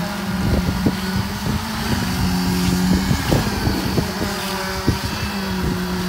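Concrete-pouring machinery running with a steady engine hum that wavers slightly in pitch, with scattered sharp knocks from the work on the wet slab.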